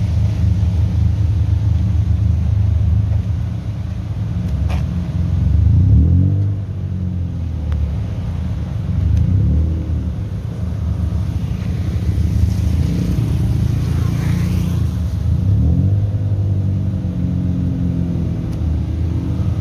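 Car engines idling with a steady low exhaust rumble, swelling briefly about six seconds in and again around twelve to fifteen seconds in.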